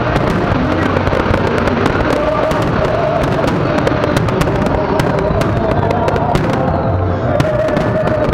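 Fireworks display: a continuous barrage of aerial shell bursts, bangs and crackles following one another several times a second.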